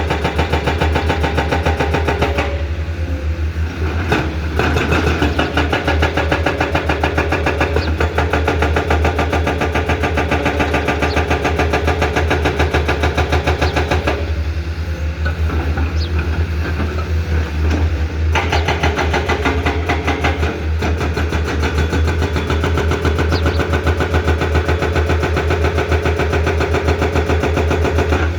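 Komatsu PC210 excavator's diesel engine running steadily with a fast, even pulse and a deep hum. Twice, for a few seconds each, its higher-pitched part drops away.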